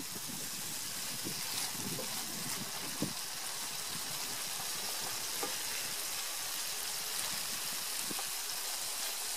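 Tomato and onion base frying in oil in a non-stick pan, with a steady sizzle and a couple of faint taps.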